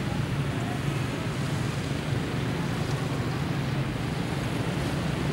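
Steady low rumble with a hiss over it: wind noise on the microphone.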